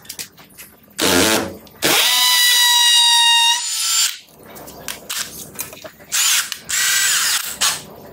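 Stanley SBH201D2K 18 V brushless cordless hammer drill boring into a masonry wall in impact mode. It runs in bursts: a short one about a second in, then a longer run with a steady high motor whine, then two shorter bursts near the end.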